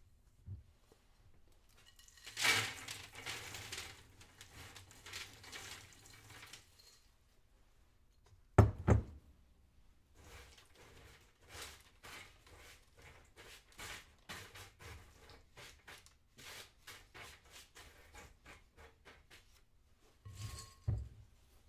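Household kitchen work: a few seconds of hissing noise, one loud thunk, then a run of light, irregular knocks and clicks, ending in a short clatter with a brief ring like a dish or utensil being set down.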